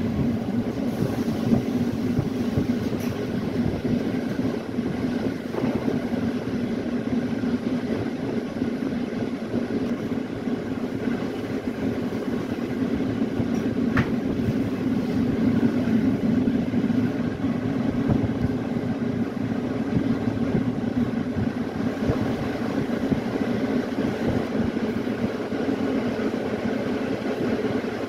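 Steady running noise of a passenger train's wheels on the rails, heard from inside the moving carriage by the window. A single short, sharp click comes about halfway through.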